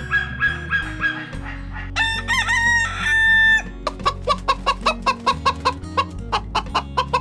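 A rooster crows once, a long wavering call about two seconds in, followed by chickens clucking in quick repeated pulses, about four a second. The crow comes after a run of short rapid calls. Background music plays underneath throughout.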